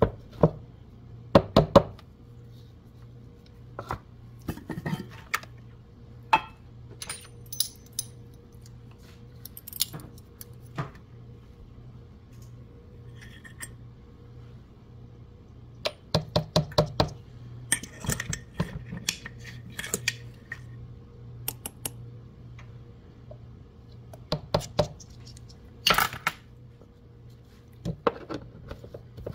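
Clinks and knocks of a blender jar, its lid and kitchen utensils being handled on a table, coming in several quick clusters over a faint steady low hum.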